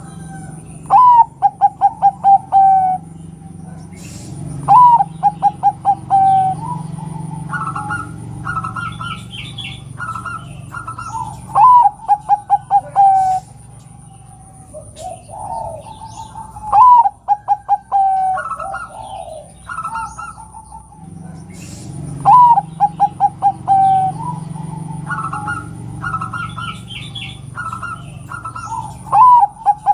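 Zebra dove (perkutut) cooing: six phrases, each a rising note followed by a quick run of short staccato coos. Between the phrases a second, higher-pitched call and faint small-bird chirps are heard.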